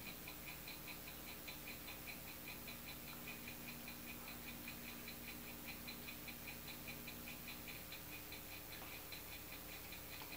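Faint, rapid, evenly spaced ticking, several ticks a second, over a low steady hum.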